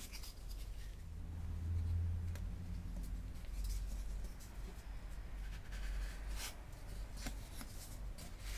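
Quiet scraping as a flat blade is drawn over damp, pasted leather corner tips, taking off the excess wheat paste, with a few short scratchy strokes and light ticks.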